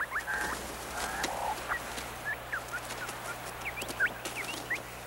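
Lyrebird singing its mimicked song: a quick, varied run of short whistles, rising and falling slurs and sharp clicks.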